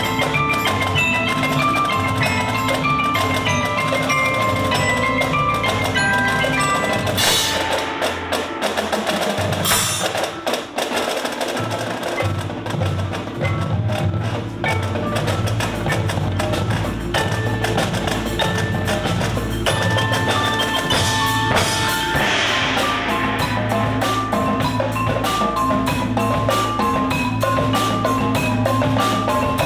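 Marching show band music: mallet percussion plays a repeating figure of short bell-like notes over a steady low accompaniment, with a rising swell of noise about seven seconds in and another around twenty-two seconds.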